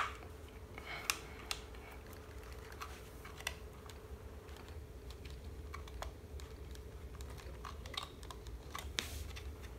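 Faint, scattered clicks and taps of hands working at the plastic wire connectors inside an opened hoverboard chassis, unplugging the cables, over a low steady hum.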